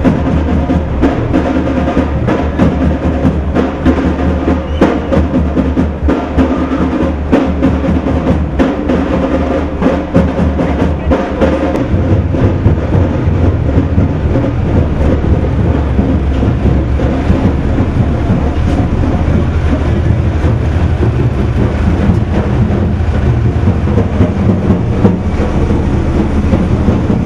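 Loud, fast drumming from a street procession's drum band, many beats in quick succession. About halfway through, a steady low rumble rises underneath and the individual beats blur into it.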